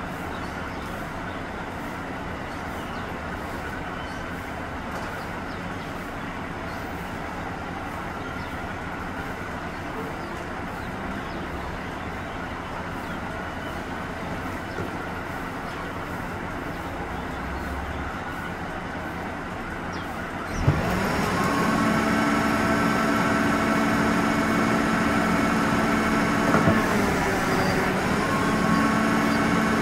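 Rear-loader garbage compactor truck's diesel engine running steadily; about two-thirds of the way in a sharp clunk, and the engine speeds up with a steady whine as the hydraulic packer works. The whine dips in pitch briefly with another clunk near the end.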